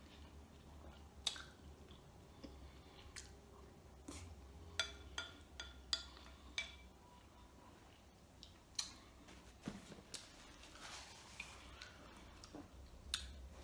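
Eating sounds: a wooden spoon knocking and scraping in a bowl of rice and stew, with chewing between the strokes. The clicks are sharp and come irregularly, a cluster of them about five to seven seconds in, a few ringing briefly like a struck bowl.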